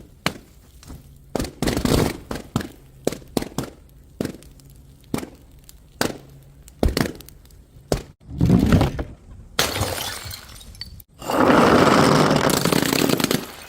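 Glass bottles knocking and breaking: a rapid run of sharp clinks and knocks, then longer crashes of shattering and crunching, the longest and loudest near the end.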